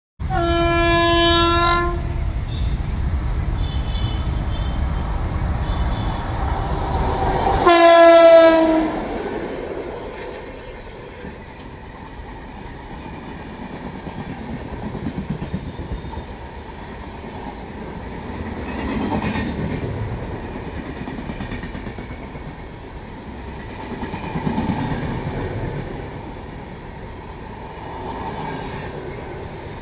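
Humsafar Express train passing at speed. The locomotive sounds its horn twice, the second blast about eight seconds in dropping slightly in pitch at its end, over a loud low rumble that eases once the locomotive is past. The LHB coaches then roll by with a steady rumble and wheel clatter that swells every few seconds.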